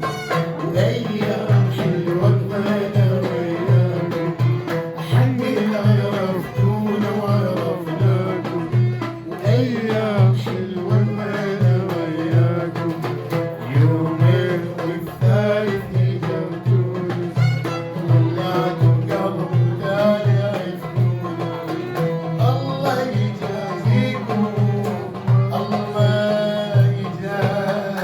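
Band playing an instrumental passage of an Iraqi song: a steady drum beat under a wavering melody.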